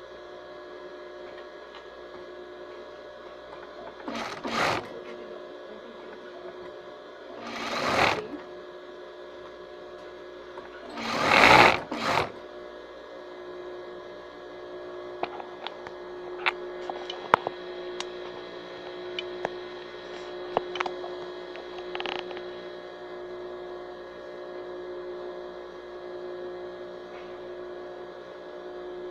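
Sewing machine running in three short bursts, about four, eight and eleven seconds in, the last the loudest, over a steady hum; after that, a scattering of sharp clicks.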